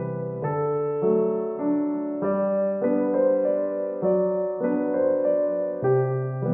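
Background piano music: a steady run of notes, a new note or chord a little under twice a second, over held low notes.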